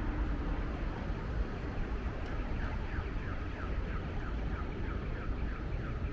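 An audible pedestrian crossing signal beeps in short, falling electronic chirps, about three a second, starting about two seconds in. It plays over a steady low rumble of street traffic and wind.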